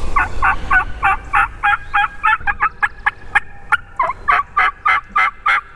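Hunter's turkey call giving a long run of hen-style yelps, about three quick notes a second, bunching faster for a moment midway, to get gobblers to answer.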